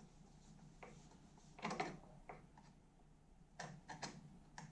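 Screwdriver turning the screw in the knob of a rotary main switch, with faint scattered clicks and scrapes of metal and plastic, the loudest cluster about a second and a half in and a few more near the end.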